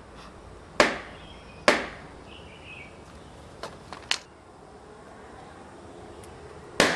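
Balloons bursting: a series of sharp single pops about a second or more apart, four loud ones with a couple of fainter quick pops in the middle.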